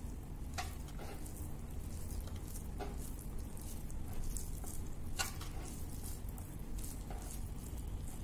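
Fingers mixing rice and pork curry on a plate: soft wet squishing with scattered small clicks, over a steady low hum.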